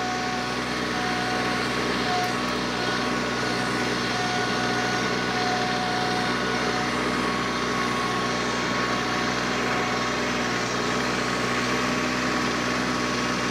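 TYM T264 subcompact tractor's three-cylinder diesel engine running steadily under load while the front loader and grapple lift and carry a clump of roots, with a thin high whine that comes and goes.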